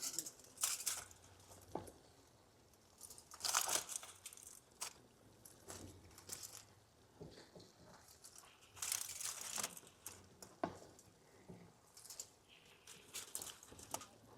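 Food packaging rustling and crinkling in intermittent bursts, with a few sharp clicks of handling, as toppings are opened and spooned onto jacket potatoes.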